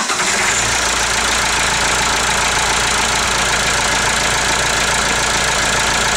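Freshly rebuilt Perkins 4.236 four-cylinder diesel engine running steadily on its first runs after the rebuild. It has started and keeps running now that a faulty O-ring in the fuel filter housing has been fixed, and it sounds pretty good.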